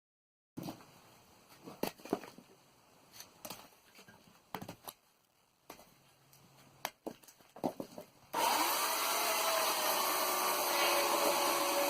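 Scattered knocks and clicks, then about two-thirds of the way in an Oregon CS1500 120-volt electric chainsaw starts abruptly and runs steadily with a motor whine.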